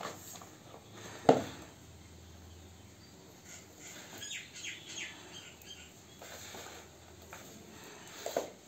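Kittens scuffling with a sneaker on a concrete floor: one sharp knock about a second in, then soft scrapes and pats. A few quick bird chirps in the background about halfway through.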